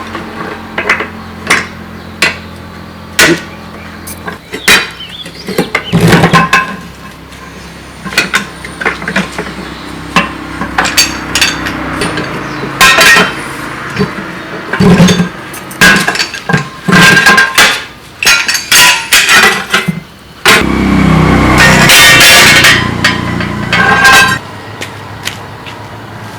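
Irregular hammer blows and metal clanks of tool work on a truck wheel. About 20 seconds in, a loud steady mechanical noise runs for about three and a half seconds.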